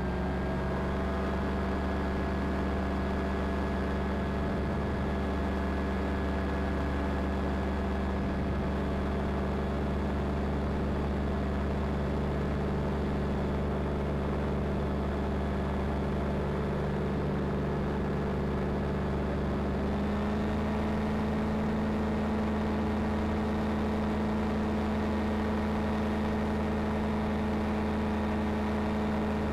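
Ultralight aircraft's engine and propeller droning steadily in flight, heard from on board. Its pitch steps up slightly about two-thirds of the way through and holds there.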